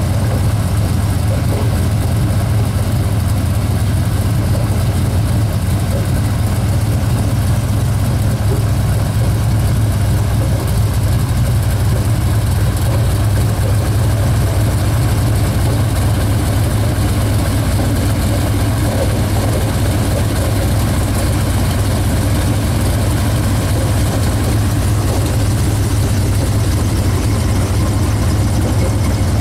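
An engine running steadily with an unchanging low drone, with no change in speed throughout.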